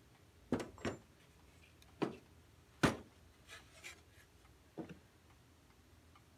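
Several irregular knocks and clunks of wooden clock-case parts and metal weights being picked up and set down on a workbench, the loudest a little under three seconds in.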